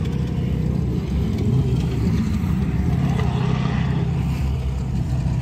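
Dune buggy engine running as it drives off across the sand: a steady low drone.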